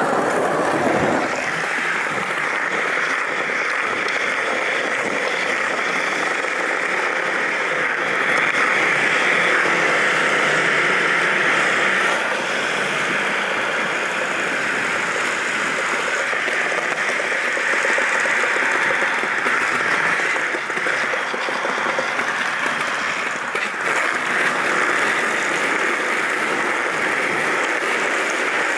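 Skateboard wheels rolling on a smooth tiled floor: a steady hiss of wheel noise, with a few faint knocks.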